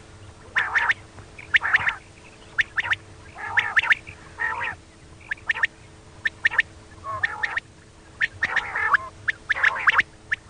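Female quail giving short, repeated calls, roughly one a second, the kind of call played to lure quail for hunting.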